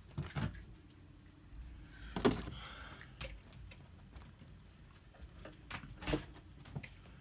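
FTX Ranger 2 RC car body shell being handled and fitted back onto the chassis: a few scattered knocks and clicks, the loudest about two seconds in and another about six seconds in.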